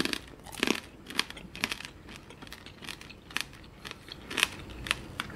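Biting and chewing candied black grapes (tanghulu): the hard sugar shell cracking between the teeth in irregular sharp crackles, two or three a second.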